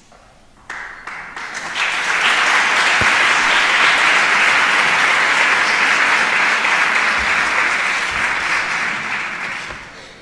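Audience applauding: a few scattered claps about a second in swell into full applause, which holds steady and then dies away near the end.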